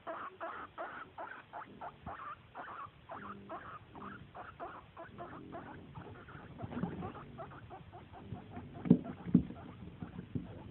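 Guinea pig squeaking for snacks in a rapid series of short calls, about three a second, for roughly six seconds, then shuffling about in a cardboard box with two sharp knocks near the end.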